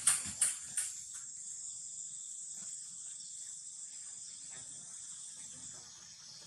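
Steady high-pitched chirring of insects such as crickets or cicadas. Four sharp crackles come in the first second, then stop.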